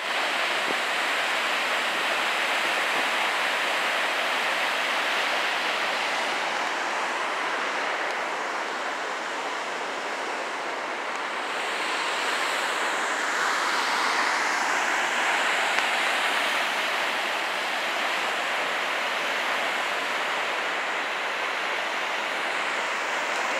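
Waterfall plunging into a rocky pool: a steady roar of falling water.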